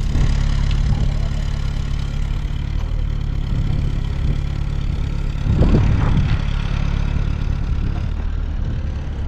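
Car engine idling steadily with a low hum, swelling louder briefly a little past halfway.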